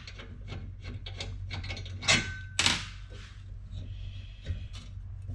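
Fuel injectors and a billet fuel rail being fitted onto an engine intake by hand: light clicks and rubbing as the parts are handled and seated, with two louder scrapes about two seconds in.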